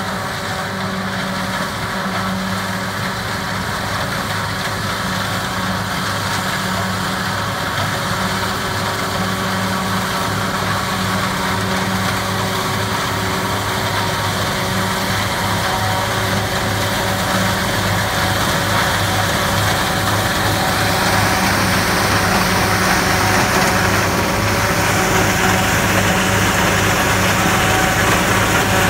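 Chaany 900 self-propelled forage harvester running under load as it cuts and chops a standing fodder crop: a steady engine drone under a dense rush of noise. It grows gradually louder, with the rush strongest over the last several seconds.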